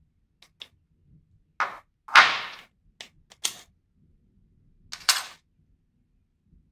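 Small tools and parts being handled and set down on a wooden table: a string of sharp clicks and clacks, the loudest about two seconds in and fading over about half a second, with a few more around three and five seconds in.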